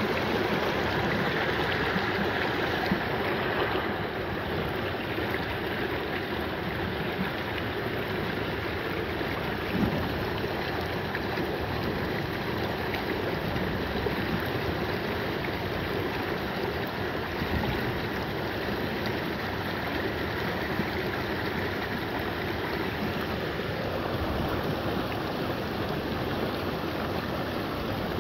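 Shallow glacier-fed mountain stream flowing steadily over cobbles, a constant rush of running water.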